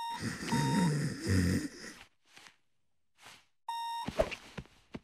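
Electronic beeping, short steady tones repeated a few times, with a low groan after the first beeps; two faint breaths follow, and the beeping comes back about four seconds in.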